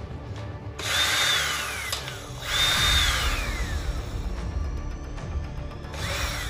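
Small electric motor whirring in two bursts of about a second and a half. Each time its high whine holds steady and then falls in pitch as it winds down. A shorter burst rises and falls near the end.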